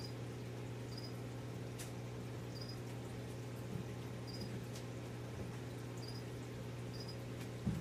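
Steady electrical hum of running reef-aquarium equipment such as pumps, with faint short high chirps every second or so and a soft thump near the end.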